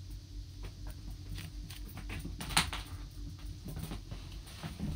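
Light, irregular clicks and rustles of handling, with one sharper click about two and a half seconds in.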